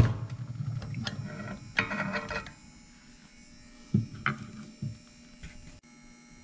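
Metal clicking and scraping as a cut-off governor arm is worked out of a Predator 212 engine's open crankcase with needle-nose pliers. A sharp click at the start, then scattered small clicks, over a steady low hum.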